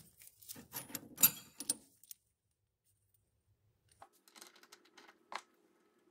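Small metal parts clinking and clanking as they are handled, the loudest clank about a second in. After a pause, faint clicks over a low steady hum.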